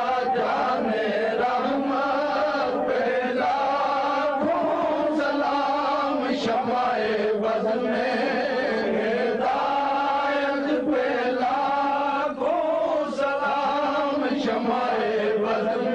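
Devotional chanting by voices, a continuous sung chant in flowing phrases without a break, typical of a Sufi devotional gathering.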